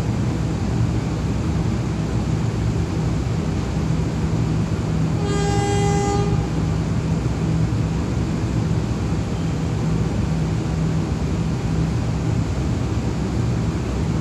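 A diesel train's engine runs steadily with a low drone, and its horn sounds one blast of about a second, about five seconds in.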